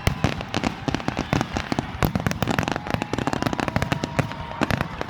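Fireworks going off, a dense, rapid run of sharp pops and crackles with no let-up.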